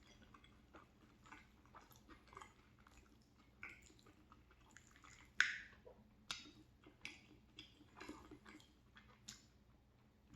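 Close-up chewing of creamy macaroni and cheese: soft wet mouth clicks and smacks, the loudest a sharp smack about five and a half seconds in.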